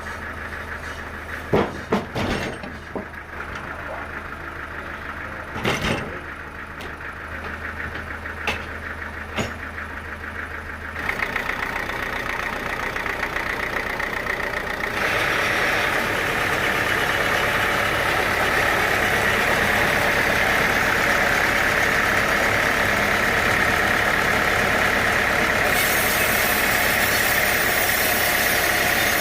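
Sawmill machinery running: a steady engine hum with several sharp knocks in the first ten seconds, then the noise grows louder about eleven seconds in and again, much louder and harsher, about fifteen seconds in, holding there.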